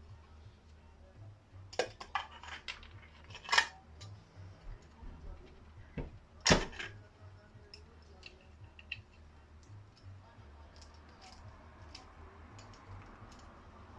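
Metal wheel and motor parts being handled and set down: scattered clinks and knocks, the loudest about two, three and a half and six and a half seconds in.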